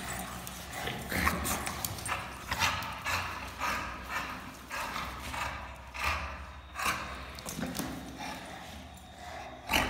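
English bulldog panting and breathing heavily while worked up in play, in irregular noisy bursts, one or two a second.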